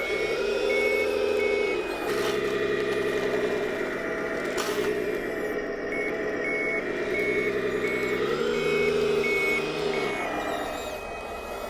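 Simulated diesel engine note from the RC wheel loader's CS-RC16 sound module, revving up and settling back twice. Electronic reversing beeps, about two a second, come at the very start and again from about halfway through until near the end.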